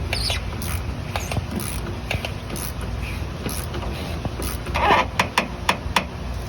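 Ratchet and socket tightening the fuel filter cap, with metal clicks and creaks. A burst of clicking comes about five seconds in, followed by a few separate sharp clicks.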